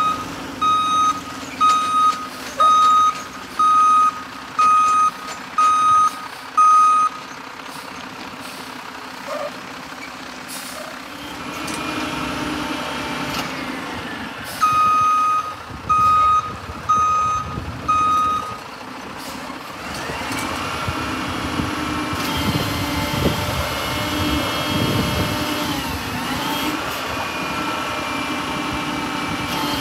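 Mack Granite roll-off truck's reversing alarm beeping about once a second over its idling diesel engine, eight beeps and then four more. Later the engine speeds up and a wavering, rising whine sets in as the hydraulic roll-off hoist works a steel container.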